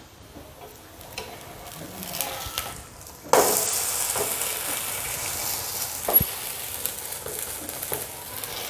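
Sabudana thalipeeth frying on a hot oiled tawa, its second side just turned down. Faint scraping of a steel spatula at first, then about three seconds in a loud sizzle starts suddenly and runs on steadily, with a single sharp click near the end.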